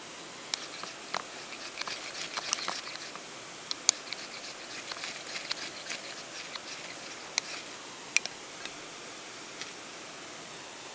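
Knife blade scraped down a ferrocerium fire-starting rod over a pile of wood shavings: a run of short, sharp scrapes and clicks, thicker in the first half and sparser after about six seconds. Beneath it runs the steady hiss of river water.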